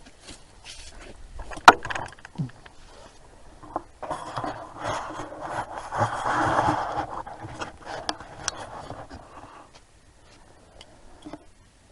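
Close rustling and scraping handling noise, with one sharp click about a second and a half in and a longer stretch of rubbing in the middle, as the camcorder is moved around.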